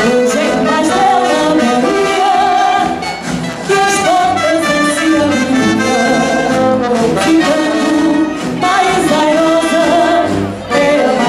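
Marcha popular music: a brass band playing a lively march while the marchers sing along.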